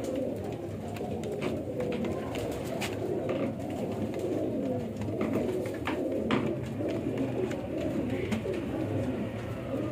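Several domestic pigeons cooing at once, low overlapping coos that run on without a break, with scattered light clicks and taps among them.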